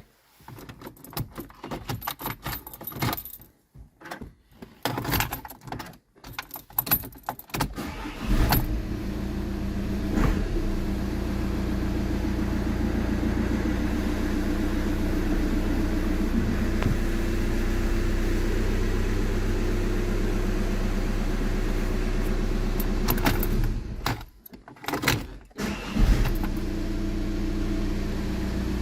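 Key and handling clicks, then about eight seconds in a VW Passat's 2.0 TDI diesel engine starts and runs at a steady idle. This is typical of the car starting again once its ECU fault is repaired. Near the end the steady running breaks off for about two seconds among a few knocks, then resumes.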